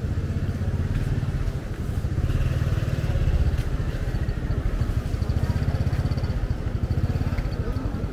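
Motorcycle engine running close by, a steady low throb that swells briefly about three seconds in.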